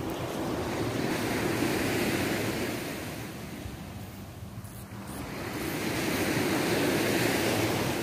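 Sea waves washing onto a sandy beach, the surge swelling, ebbing about halfway through, then swelling again, with some wind on the microphone.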